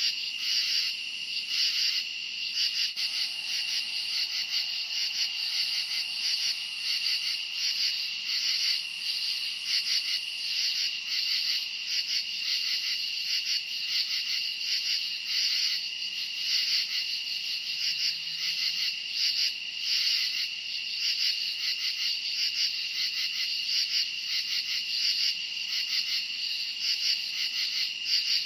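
A chorus of crickets chirping on a summer night: a steady high trill with many rapid, pulsing chirps layered over it, going on without a break.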